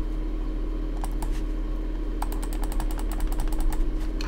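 Computer mouse scroll wheel clicking notch by notch in a fast even run of small ticks, after a few separate clicks about a second in, over a steady low electrical hum.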